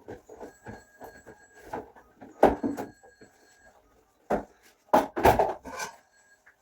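Irregular knocks and clatter of hard household objects being handled, with louder bangs about two and a half seconds in and again near the five-second mark.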